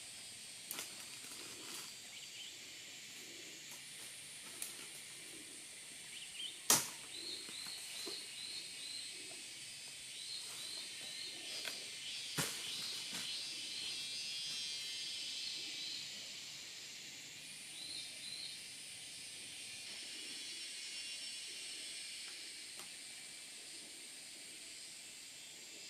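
Forest ambience: a steady high insect drone with runs of short chirps. Two sharp knocks, the louder about 7 s in and the other about 12 s in, with a few fainter clicks between.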